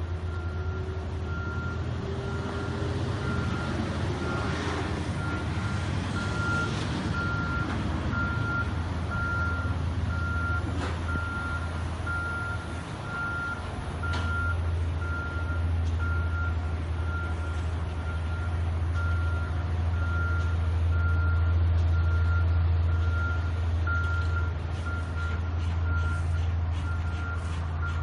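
Caterpillar 140H motor grader's diesel engine idling with a steady low hum, louder in the second half near the rear engine enclosure. Over it a reversing alarm beeps steadily, about once a second.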